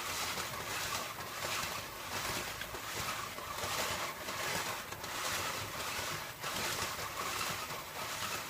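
WD-40 aerosol hissing as it is sprayed onto a motorcycle drive chain while the rear wheel is turned, the hiss swelling and easing over and over.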